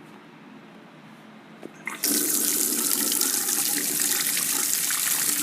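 Bathroom sink faucet turned on about two seconds in, then water running steadily into the basin.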